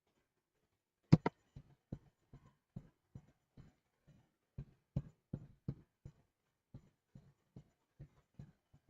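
Irregular light clicks or taps, about two or three a second, starting about a second in; the first two are the loudest.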